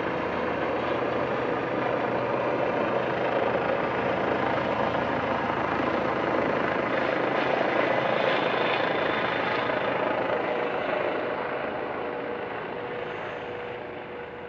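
Police helicopter flying past, its engine and rotor noise steady, then fading over the last few seconds as it moves away.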